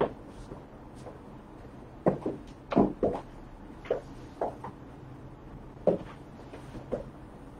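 Stiletto high heels clicking on a hard floor in irregular steps, several coming in quick pairs a couple of seconds in, over a faint steady hum.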